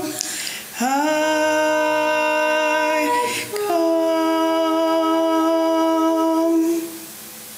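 Unaccompanied voices singing a hymn in harmony, with long held notes; the final chord is held and ends about seven seconds in, leaving a short ring of the room.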